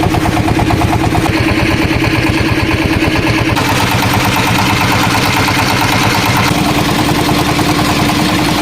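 Small boat's inboard engine running steadily at an even speed, with a fast regular firing beat.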